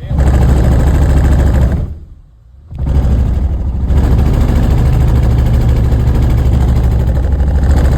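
A loud engine or motor running hard with a rapid rattling pulse. It runs for about two seconds, cuts back for under a second, then comes back on and keeps running.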